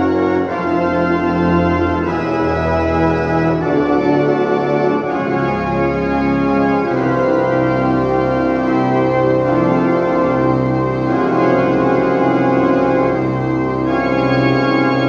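Wilhelm Rühlmann pipe organ of 1913 (opus 366) playing loud sustained chords of a pop-song improvisation, the harmony shifting every few seconds, on a bright, near-full registration of principals 8-4-2, mixture and 16-foot Posaune reed. The organ is only pre-voiced and not yet fully tuned.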